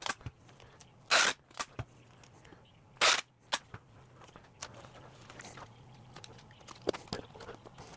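Clear packing tape pulled off a handheld tape-gun dispenser in two short, loud rips, about a second in and again about three seconds in, followed by quieter handling noise and small clicks.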